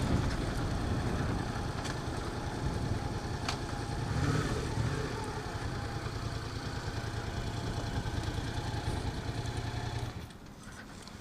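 Yamaha FZ-07's 689 cc parallel-twin engine running at low speed, then switched off about ten seconds in.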